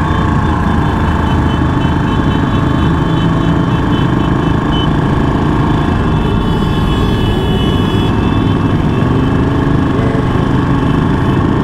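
Motorcycle engines of a big group riding slowly together, with the on-board Ducati sport bike's engine running steadily at low speed close by and other bikes' engines around it, a steady drone of several engine tones.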